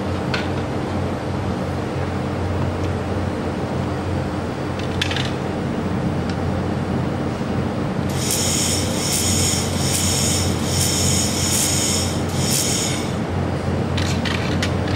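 Handheld fiber laser welder spot welding a stainless steel pot rim: about halfway through, a run of high crackling weld pulses starts, about two a second for some five seconds. A steady machine hum sits underneath, with a few sharp clicks of the work being handled.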